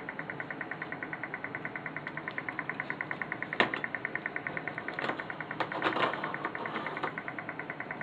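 A steady, rapid pulsing, about eight pulses a second, with a few sharp clicks a little before the middle and more past it.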